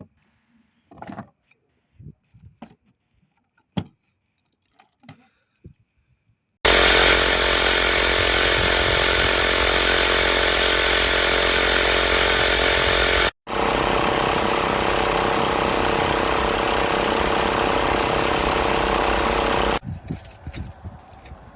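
Portable 12 V tyre-inflator air compressor running loud and steady. It starts abruptly about six seconds in, cuts out for an instant about halfway, and stops near the end. A few faint clicks come before it starts.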